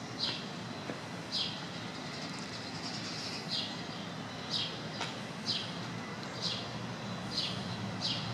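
A small bird chirping, a short downward-sliding note repeated about once a second, some eight times, over a steady low background rumble.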